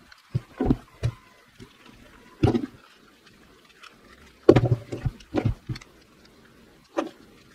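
Knocks and clatter of a cordless drill body and a small screwdriver being handled and set down on a wooden tabletop while the drill housing is put back together: a handful of separate bumps, the loudest cluster about four and a half seconds in.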